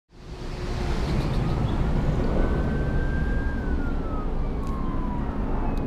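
A distant siren wailing, one slow rise and fall in pitch, over a steady low rumble.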